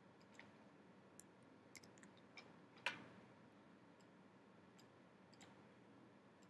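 Faint, scattered clicks of a computer mouse and keyboard over near-silent room tone, with one louder click about three seconds in.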